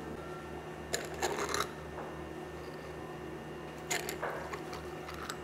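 A short clatter of counter handling about a second in, then water poured from a pitcher onto ice in a tall glass, starting with a splash and crackle just before four seconds in. A low, evenly pulsing hum runs underneath.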